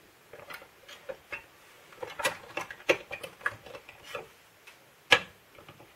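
Light plastic clicks and taps as a red plastic AA-to-C battery adapter is handled and pushed into a battery compartment among C cells, with one sharper click about five seconds in.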